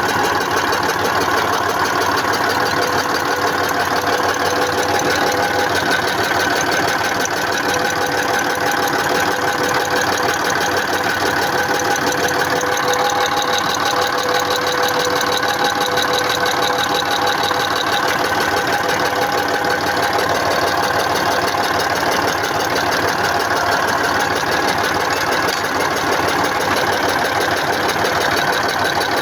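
YaMZ-236 V6 diesel engine running steadily with a fast clatter and a knock, which the owner roughly traced to the fuel feed to an injector.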